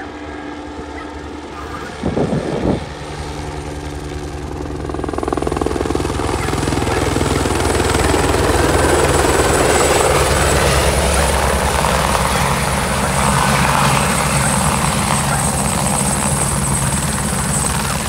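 Light single-engine turbine helicopter, an AS350 Squirrel type, coming in low and landing: the rotor thrum and a thin, steady high turbine whine grow louder over the first several seconds, then hold steady and loud as it settles onto its skids with the rotor still turning.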